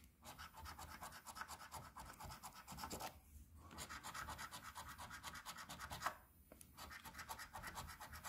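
A coin scratching the coating off a scratch-off lottery ticket in quick, faint back-and-forth strokes, pausing briefly about three seconds in and again about six seconds in.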